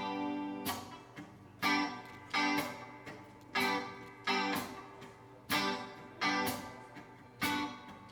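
Solo guitar intro to a pop-rock song played live: chords strummed in a repeating rhythm of about one to two strokes a second, each chord ringing and fading before the next.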